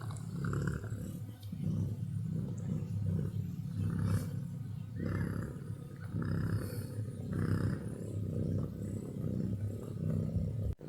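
Cat purring close by: a steady low rumble that swells and eases in breath-length cycles of about a second or so.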